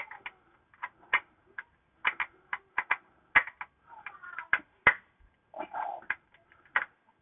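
Irregular light metallic clicks and clinks as a nut and bolt are worked by hand into the rear spring seat, the bolt ticking against the metal.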